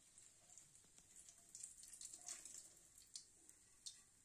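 Near silence, with faint crackling and a few light, sharp clicks.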